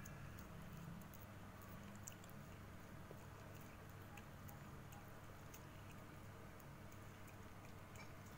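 Faint, irregular wet clicks and smacks of a cat licking and chewing wet tuna cat food from a pouch, over a low steady hum.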